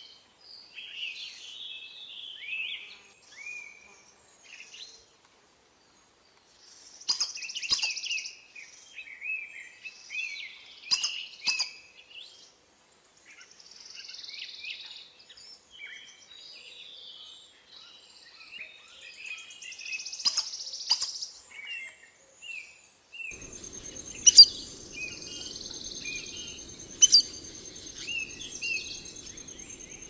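Several birds chirping and calling in short, repeated phrases, with a few sharp clicks among them. From about 23 seconds in, a steady high-pitched tone and a low hum join in.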